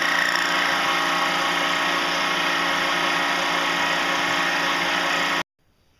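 Small metal lathe running steadily under power, its motor giving a constant whine while it turns a plastic bearing part for a light skim cut to knock off high spots. The sound stops abruptly about five and a half seconds in.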